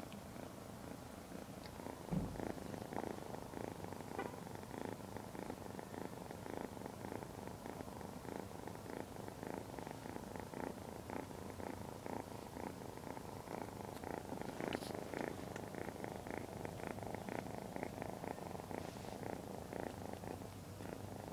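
A 12-week-old Ragdoll kitten purring steadily while being stroked, the purr pulsing in a regular rhythm. A single bump about two seconds in.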